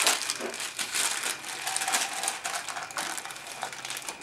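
Baking paper rustling and crinkling as it is peeled back from a chilled slice and handled on the bench.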